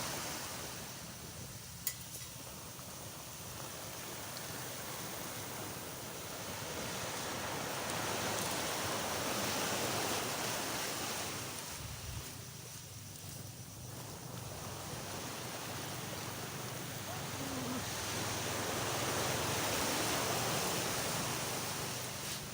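Sea waves washing onto the beach, the surf swelling and easing in slow surges several seconds apart. A single sharp click comes about two seconds in.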